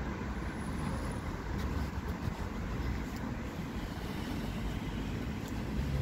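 Steady low outdoor rumble of city traffic, with wind buffeting the microphone.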